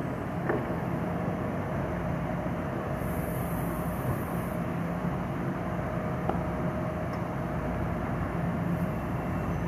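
Metro-North electric commuter train standing at the platform, its onboard equipment giving a steady hum. Near the end a faint high whine comes in as the train begins to move off.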